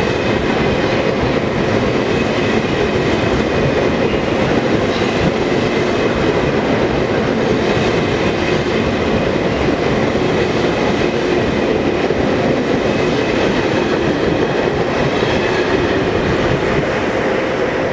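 Russian Railways passenger coaches rolling past on the rails as the train pulls out of the station: a steady noise of wheels on track, with faint steady whining tones through it.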